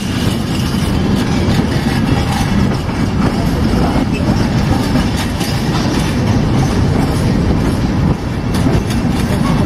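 Intermodal freight train of loaded container and swap-body wagons rolling past close by at low speed: a steady, loud rumble of steel wheels on the rails.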